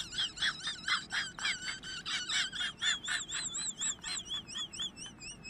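High-pitched, bird-like warbling chirps repeating rapidly, about four or five a second, which run together into a wavering trill about halfway through.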